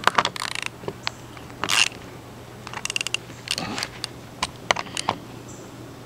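Small ratchet clicking in short back-and-forth strokes as it runs the bolts of a battery terminal clamp down onto the cable, with scattered metal clicks and taps, including a quick run of clicks about three seconds in.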